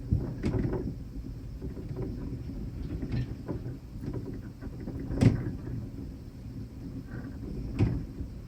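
Crackling static on a weather radio receiver with no voice on the channel, a low rough noise broken by a few sharp pops, the loudest about five seconds in.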